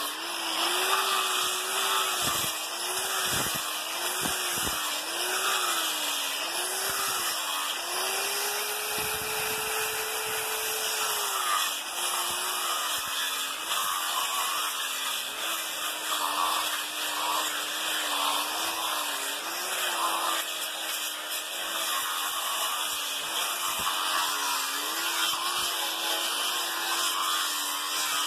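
Electric angle grinder with an abrasive sanding disc sanding wood, a rasping grind over the motor's whine. The motor pitch keeps dipping and recovering as the disc is pressed into the wood and eased off, and runs higher and steady for a few seconds near the middle while the disc is off the work.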